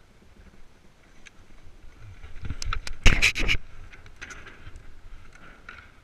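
Iceboard running over lake ice with noise building, then a loud, clattering crash about three seconds in as the rider falls and the rig goes down onto the ice.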